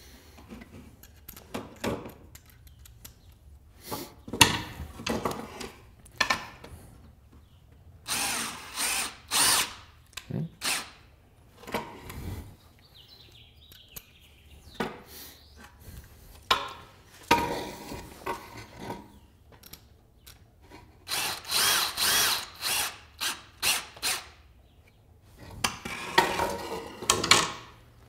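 A cordless drill runs in a series of short bursts of one to three seconds, with pauses between them, as it works into the bone of a deer skull.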